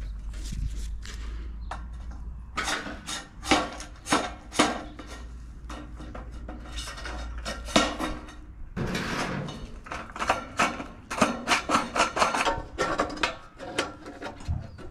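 A piece of thin galvanized steel gutter sheet being bent and worked with pliers. It makes an irregular run of sharp crinkles, clicks and rattles as burrs are taken off and the metal is straightened.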